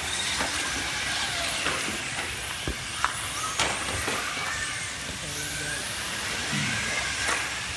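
Radio-controlled touring cars racing around a track: a continuous high whine of the cars' motors and tyres, with a few sharp clicks in the middle.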